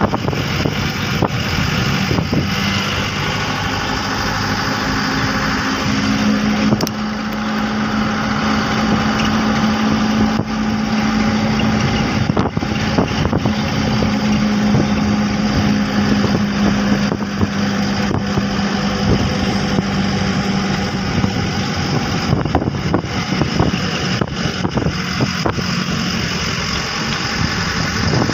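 Bus engine and road noise heard from inside a moving passenger bus: a dense steady rumble with a low engine drone through most of it, and a few sharp knocks.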